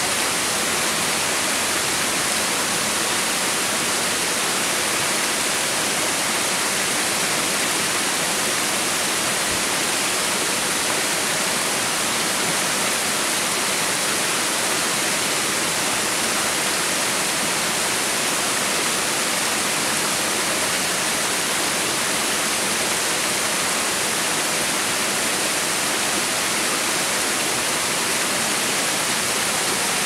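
Water spilling over a broad river weir: a steady, hissing rush that does not change.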